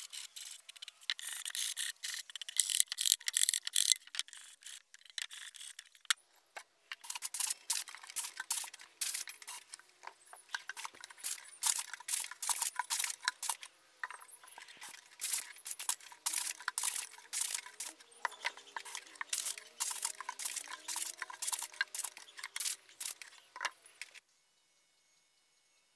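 Hand sanding of a plywood box with sandpaper: quick, scratchy back-and-forth strokes, several a second. Near the end it cuts off to near-silent room tone.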